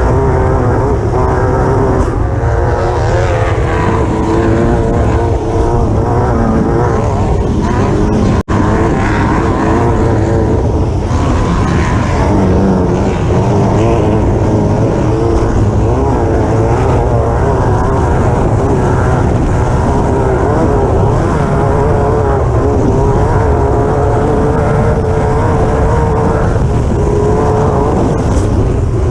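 Class 9 desert race buggy's engine running hard at high revs, its pitch wavering up and down as it is driven over rough ground, over a heavy low rumble. The sound cuts out for an instant about eight seconds in.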